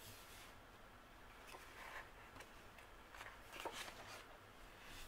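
Faint rustling of sticker-book sheets being lifted and turned by hand, with a light paper tap about three and a half seconds in.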